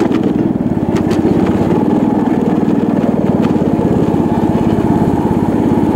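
Small engine running steadily with a rapid, even putter.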